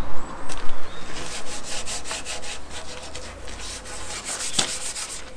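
A Scotch cloth abrasive pad rubbed back and forth over a pine plank, working grey water-based wood stain in along the grain: a run of quick scratchy strokes.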